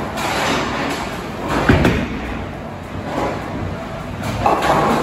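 Bowling alley: a ball rolling down the lane with a low rumble, then pins crashing, the loudest crash about a second and a half in and another near the end.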